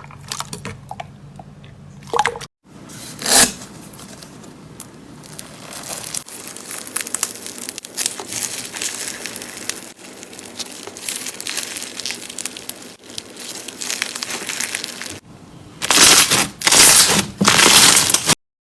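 Slime being squeezed and pressed close to the microphone, crackling and crunching. It is a run of short clips with brief cuts, and the loudest crunching comes in bursts near the end.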